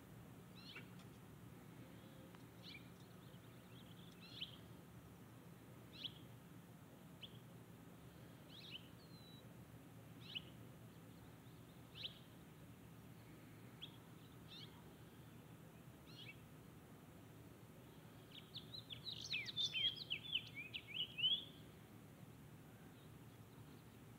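A bird chirping: short, high single chirps every second or two, then a quick run of twittering calls about three quarters of the way through, over a faint steady low hum.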